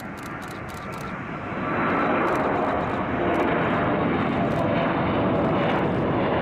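Airliner engine noise: a steady, dense rush that swells about two seconds in and then holds.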